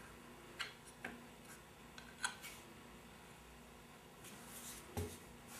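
Faint handling sounds of glue being brushed from a squeeze bottle's brush tip onto the edges of a wooden box: a few light clicks and taps of the bottle against the wood, then a soft thump about five seconds in.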